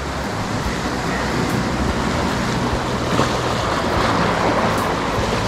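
Sea waves breaking and washing over a rocky, stony shoreline: a steady rush of surf.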